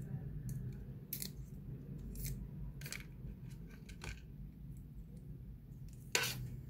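Scattered sharp clicks and light rustles as the iPhone's Lightning-to-USB cable and its packaging are handled, the loudest click about six seconds in, over a low steady hum.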